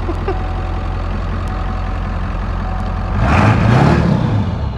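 Ford OBS pickup's 7.3-litre V8 turbo-diesel idling, then revved once about three seconds in, its pitch rising and dropping back to idle.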